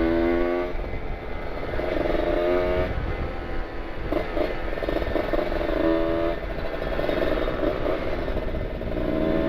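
Kawasaki Ninja 150 RR's two-stroke single-cylinder engine running through an R9 carbon aftermarket exhaust while riding. The throttle is eased off and reopened several times, so the engine note drops away and comes back.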